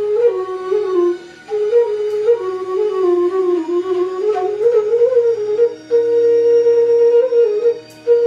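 Bansuri (bamboo transverse flute) playing a slow melody with sliding ornaments and short breath pauses, settling in the second half into long held notes.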